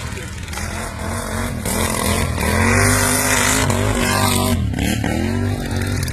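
Racing lawn mower engines revving hard, their pitch rising and falling again and again, loudest around the middle.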